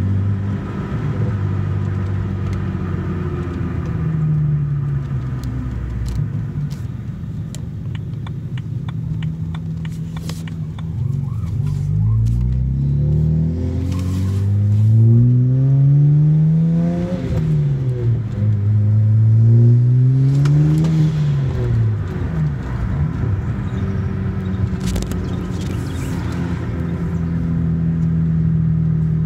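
BMW 335i's N54 twin-turbo inline-six heard from inside the cabin as the car is driven. It runs steadily for the first third, then its pitch climbs and drops back several times in the middle as the engine revs up and falls between gears, before settling steady again near the end.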